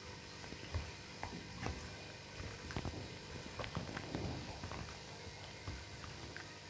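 A dog mouthing and tugging a blanket in its teeth: scattered soft thumps, clicks and fabric rustling at an uneven pace.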